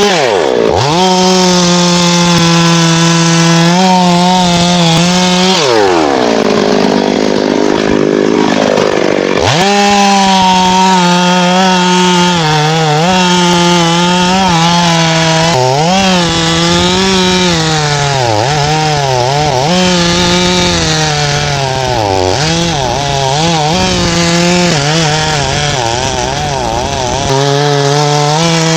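Two-stroke chainsaw cutting wood at high revs, its pitch wavering as the chain bites. About six seconds in it drops toward idle, then revs back up some three seconds later.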